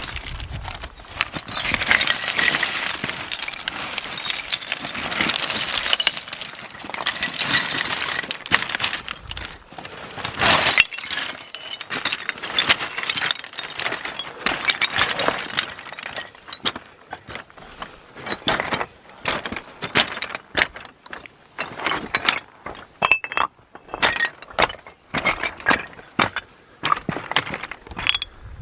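Hard objects clinking and clattering together in a long, irregular run of sharp clicks and knocks, dense in the first half and more spaced out in the second.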